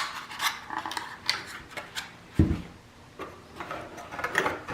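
Packaging rustling and scraping as a boxed door knob is unpacked by hand, with short scrapes and clicks throughout. There is one dull thump about halfway through.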